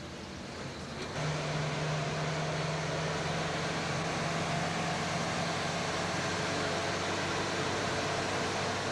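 Engine and road noise from inside a moving vehicle: a steady rushing with a low engine hum, which gets louder about a second in.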